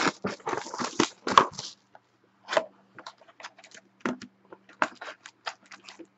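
Plastic wrapping and a cardboard trading-card box being opened: a dense crinkling and tearing for about the first two seconds, then scattered light taps and clicks of the box lid and card pack being handled.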